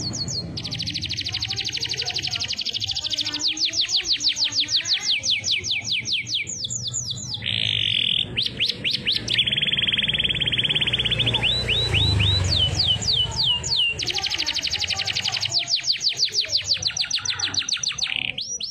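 Domestic canary singing a long, unbroken song: fast trills of rapid downward-sweeping high notes, several a second, alternating with stretches of steady buzzy tone.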